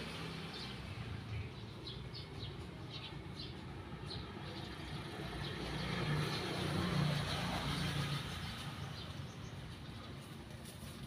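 A passing motor vehicle: a low engine hum that swells to its loudest about seven seconds in, then fades. Birds chirp in the first few seconds.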